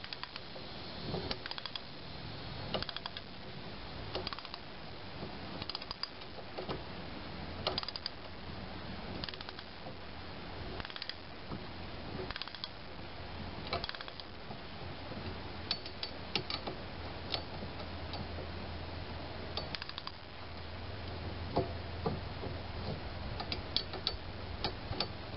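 Socket ratchet wrench clicking in short, irregular runs as it tightens the nut on a U-bolt exhaust clamp, clamping a Gen-Turi generator exhaust extension onto a generator's exhaust pipe.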